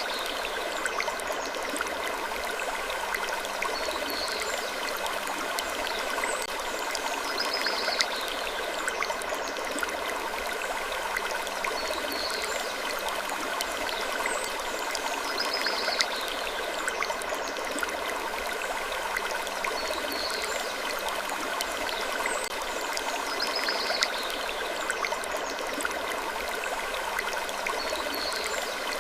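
Looped wood-creaking ambience: a steady textured hiss with short creaks, the same pattern repeating about every eight seconds.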